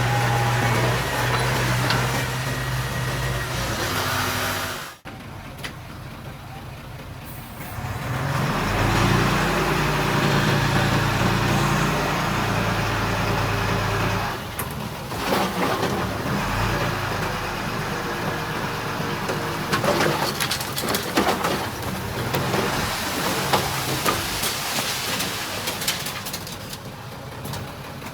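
Diesel engines of heavy earthmoving machinery running and working, rising and easing off in level, with occasional sharp clanks and knocks. The sound drops away abruptly about five seconds in, then builds again a few seconds later.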